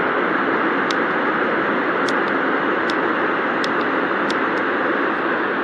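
Color Noise white-noise sound machine playing one of its soothing sounds: a steady, even hiss with a few faint, sharp ticks scattered through it.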